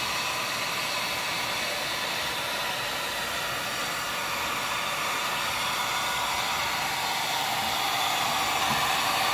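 A 1500-watt Chicago Electric heat gun blowing a steady hiss of hot air from its fan. It is heating a Ruger 10/22's aluminum receiver so that it expands and frees the steel barrel. The sound grows a little louder over the last couple of seconds.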